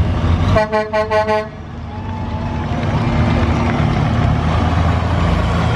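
A semi truck's horn sounds in a rapid string of about five short toots over a heavy diesel truck engine's low running. After the toots the engine noise dips, then steadily builds again.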